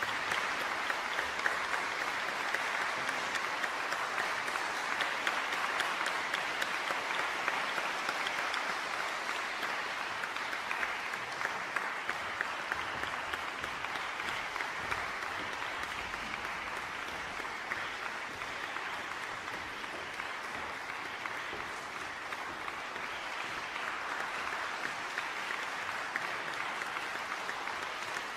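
Audience applauding steadily, many hands clapping at once; it eases a little midway and picks up again near the end.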